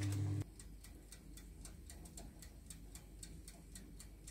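Faint, rapid, steady clockwork ticking, about five ticks a second, after a low electrical hum cuts off abruptly near the start.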